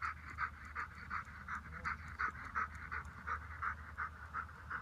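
A dog panting quickly and evenly, about three breaths a second.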